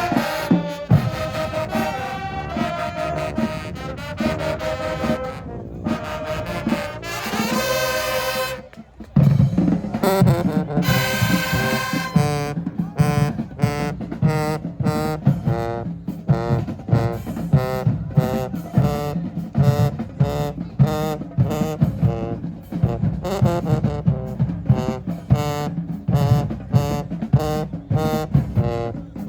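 High school marching band playing, brass carrying the tune. About nine seconds in the music breaks off briefly, then comes back louder with the full band and drums on a steady beat.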